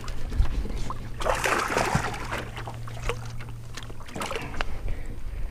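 Knocks, clicks and rustling from handling on the deck of a small aluminium fishing boat, with a burst of noise about a second in, over a low steady hum that stops about four seconds in.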